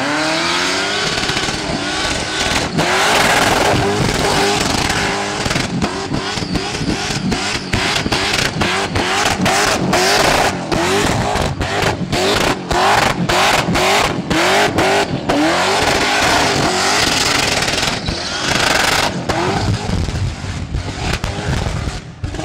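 Supercharged Holden VL Commodore doing a burnout. The engine revs up, then is held high in repeated rising surges about twice a second, with sharp cracks through the hiss of spinning, smoking tyres.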